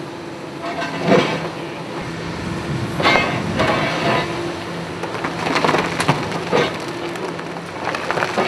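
High-reach demolition excavator's engine and hydraulics running steadily while its crusher jaws bite into the concrete of a tower block's upper floor. Bursts of crunching, cracking concrete and falling debris come about a second in, around three and four seconds, and around six seconds.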